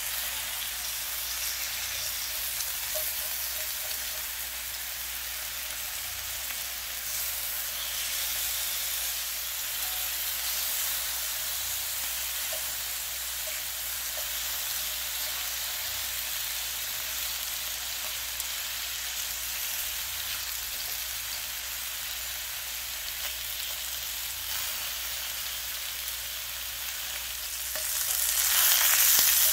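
Bacon and sausages sizzling in a hot cast-iron skillet, a steady frying hiss, while metal tongs lift and turn the bacon strips. The sizzle grows louder near the end.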